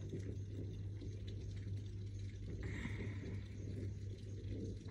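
Low rumble of distant thunder rolling over a steady low hum, with a brief higher-pitched sound a little past halfway.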